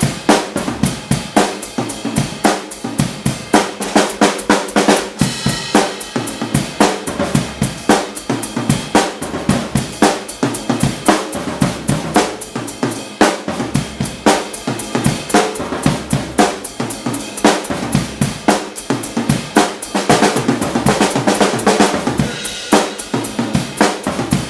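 Drum kit being played in a steady groove of kick drum, snare and cymbals, with the cymbal wash building up near the end. Recorded on an iPhone through a Zoom iQ7 plug-in microphone.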